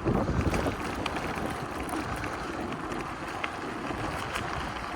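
Wind buffeting the microphone over the crunch of bicycle tyres rolling on a gravel road, with scattered small clicks of gravel.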